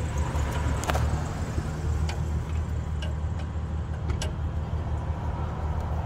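A few sharp metallic clicks of a 17 mm open-end wrench on the high-pressure fuel line nut of an L5P Duramax injector as it is turned and repositioned. Underneath, a steady low hum of an idling engine.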